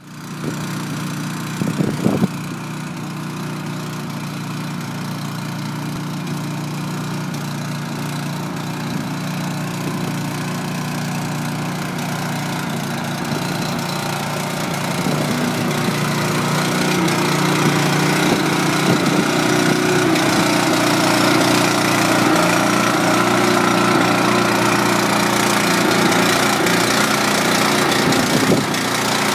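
Small Honda gas engine driving the tanker's centrifugal pump, running at a steady idle and growing louder about halfway through. A couple of brief knocks sound about two seconds in.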